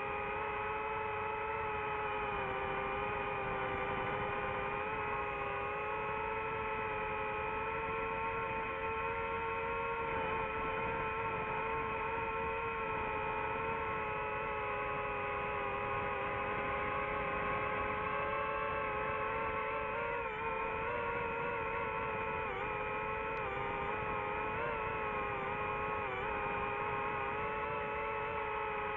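DJI FPV drone's motors and propellers whining steadily in flight, their pitch dipping and wavering a few times in the second half as the throttle changes.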